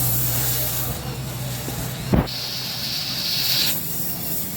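A knock about two seconds in, then a hiss of escaping gas that lasts about a second and a half.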